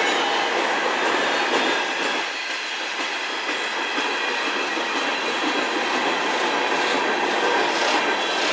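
Freight cars of a CN manifest train, tank cars and centerbeam flatcars, rolling past: steady noise of steel wheels on the rails with light clicking.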